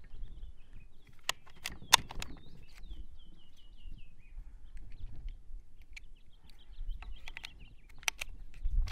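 A songbird calls a run of short, quickly repeated descending chirps for the first few seconds. Over it come a few sharp clicks, the loudest about two seconds in and two more near the end.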